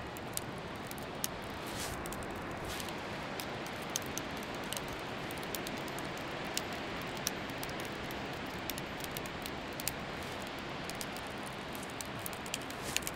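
Steady wash of ocean surf and wind on an open beach, with scattered faint ticks.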